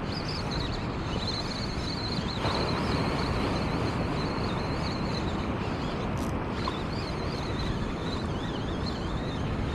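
Steady wind on the microphone and surf washing on the shore, with a faint, thin, wavering high whine running through most of it.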